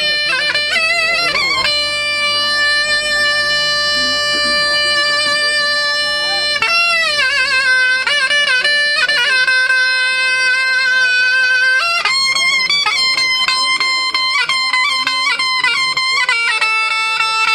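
A small folk wind pipe with a flared metal bell playing a slow, free-rhythm uzun hava melody: long held notes joined by quick ornamented turns.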